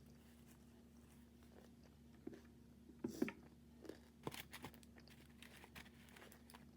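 Close-miked chewing and biting of lemon pepper wet chicken wings: a cluster of crunches and wet clicks from about two to six seconds in, over a faint steady hum.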